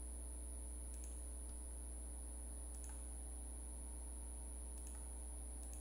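Steady low electrical hum and a thin high whine from the recording setup, with three faint, sharp clicks spread a couple of seconds apart, like a computer mouse or keys being worked.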